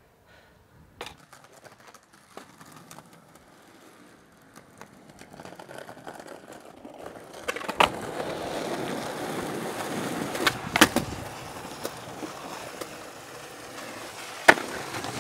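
Skateboard wheels rolling on pavement, growing louder as the board approaches, with sharp clacks of the board: one about eight seconds in, a quick pair a little before eleven seconds, and another near the end.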